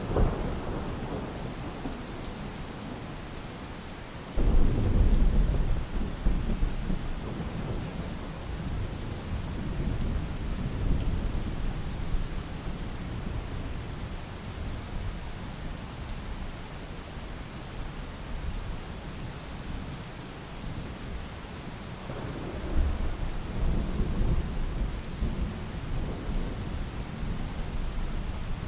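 Steady rain falling, with thunder: a sudden low rumble about four seconds in that slowly dies away, and another rolling rumble in the last third.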